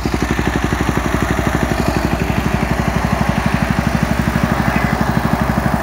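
KTM Duke 250's single-cylinder engine idling steadily through a Prospeed Viper stainless full-system exhaust with a carbon end cap, run without a dB killer. It gives an even, deep pulsing beat of about twelve pulses a second.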